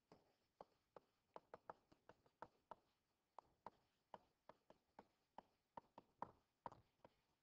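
Faint, quick, irregular taps and clicks of a stylus touching down on a tablet screen while words are handwritten, about three a second.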